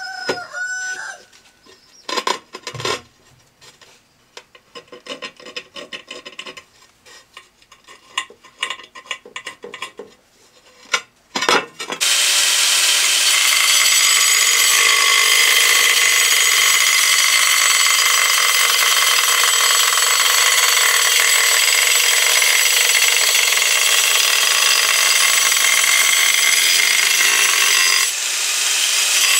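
Scraping and light knocks, then about twelve seconds in a power tool starts cutting ceramic tile and runs loud and steady, dipping briefly near the end.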